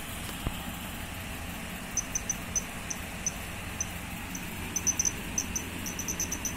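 9-volt buzzer of a homemade pendulum earthquake alarm giving short, high-pitched beeps at uneven intervals as the swinging steel rod makes and breaks contact. The beeps start about two seconds in and come thicker near the end. One light knock about half a second in.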